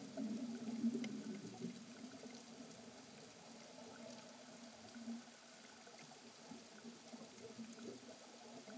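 Faint, muffled underwater ambience: low sloshing water sound with scattered small ticks, loudest over the first two seconds and then fading.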